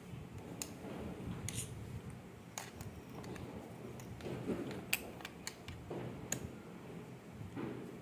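Several light, irregular clicks from an old two-pin Whirlpool washing machine pressure switch being pressurised by hand through a small pipe; the switch gives a sharp 'tak' as its contacts close under pressure.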